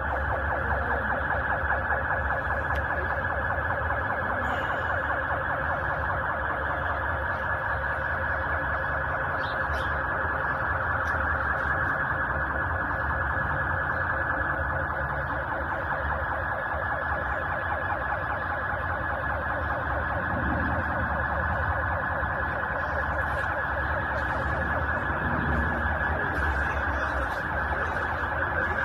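Siren sounding continuously with a fast warble, holding steady throughout.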